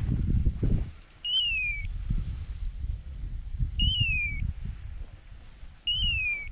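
A short, clear whistled call that slides down in pitch, repeated three times at even spacing about two and a half seconds apart, over the low rustle and thud of footsteps through field cover.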